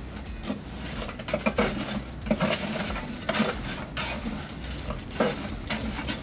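An old spatula scraping around the charcoal grate of a Kamado Joe kamado grill, working fine ash down through the grate into the ash box, in repeated irregular strokes.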